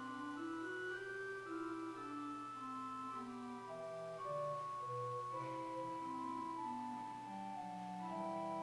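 Organ music: slow moving lines of held notes, settling into a sustained chord near the end.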